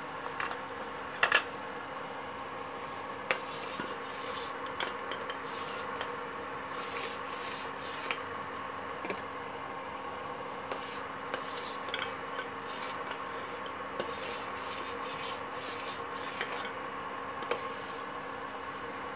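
Steel spoon stirring milk in a stainless steel pot, with short irregular scrapes and clinks against the pot, over a steady electric hum.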